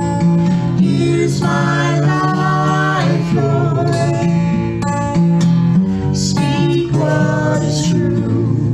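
Takamine acoustic guitar strummed while a man and a woman sing a song together.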